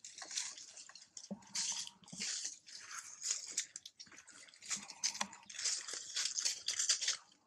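Macaques in a tree: irregular crackling and rustling in short bursts, from leaves and twigs being moved and handled.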